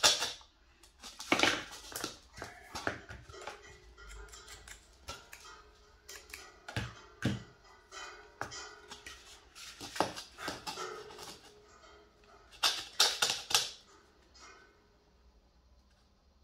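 Irregular clicks, taps and scrapes from handling a corded pyrography pen and a dried bottle gourd, with a quick run of clicks near the end. A faint steady tone runs underneath through the middle.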